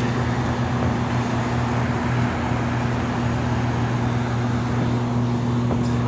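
Rooftop air-conditioning equipment running: a steady low hum over a constant even noise.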